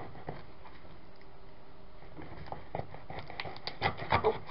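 Utility knife scraping and cutting at the packing tape and cardboard of a box, a run of short scratchy clicks that starts about halfway through and builds towards the end. The blade is dull and drags rather than slicing cleanly.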